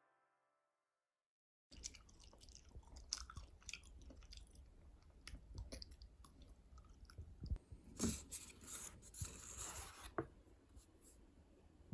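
Close-up eating sounds: chewing with small wet clicks, and a louder rustle for a couple of seconds about eight seconds in. It starts suddenly after a second or two of silence.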